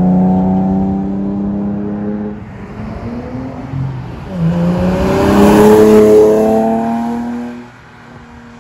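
A 1991 Acura NSX's 3.0-litre V6 breathing through a full-titanium RFY GT exhaust, driving past at speed. The engine note rises in pitch under acceleration, is loudest about six seconds in as the car passes, then falls away near the end.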